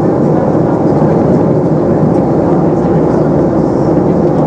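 Steady cabin noise of a Boeing 737-300 in flight, heard from a window seat over the wing: its CFM56-3 turbofan engines and the airflow past the fuselage make an even, low rumble.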